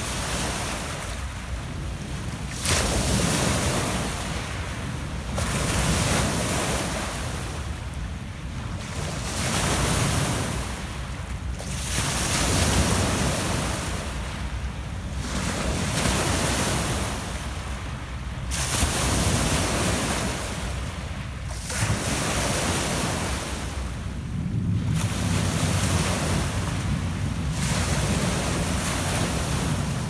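Small Lake Ontario waves breaking and washing up a pebble-and-cobble shore, each wash swelling and fading every two to three seconds. Wind rumbles on the microphone underneath.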